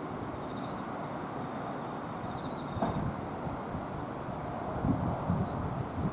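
Wind blowing outdoors and buffeting the microphone as a steady rush, with low gusts rumbling in about five seconds in.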